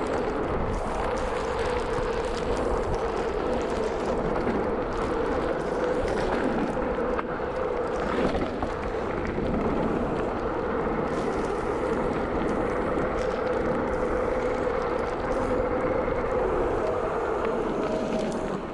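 Mountain bike rolling fast down a wet gravel track: wind buffeting the camera's microphone over the rush of tyres on gravel, with a steady hum.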